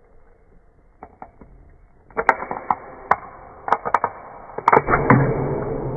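Close-miked aluminium Coca-Cola can being opened by its ring-pull tab: a few faint clicks, then a run of sharp clicks and cracks as the tab levers up, the loudest near the end, followed by a hiss from the opened can that fades.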